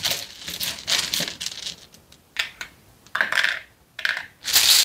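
Small plastic Azul mosaic tiles clicking and clattering as they are set down by hand, a few at a time, onto cardboard factory discs, with short rustles in between.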